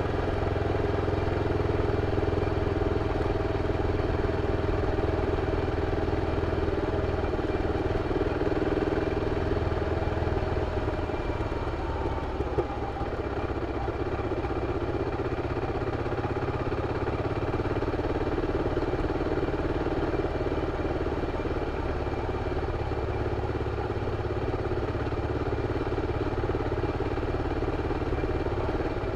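BMW F 650 CS Scarver's single-cylinder engine running steadily through its original exhaust. Its note shifts slightly about eleven seconds in, with one short click just after.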